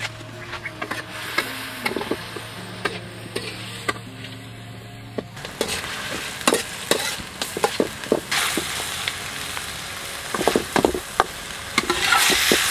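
Meat frying and sizzling in a steel wok, with a metal ladle clinking and scraping against the pan as it is stirred. The sizzle swells loudest near the end.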